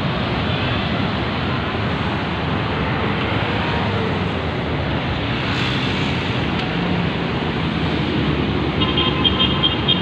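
Steady road traffic noise: cars, vans and motorcycles running on a busy road, blending into one continuous sound. A quick run of high, rapidly repeated beeps comes near the end.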